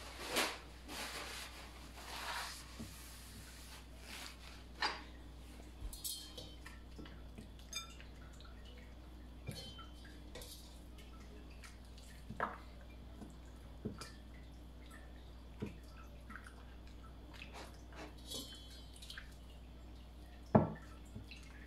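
Quiet kitchen clatter: scattered light clicks and knocks of dishes and utensils, spaced a second or more apart, with a short hiss near the start.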